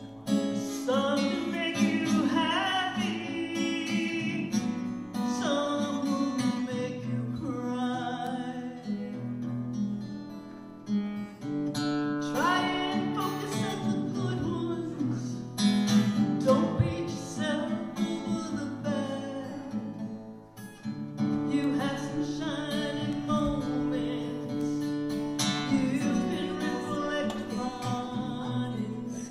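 A woman singing a slow song, accompanying herself on acoustic guitar.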